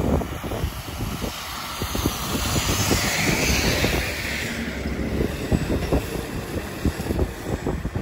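A transit bus passes, its tyre and engine noise swelling and fading in the middle, while wind buffets the microphone throughout.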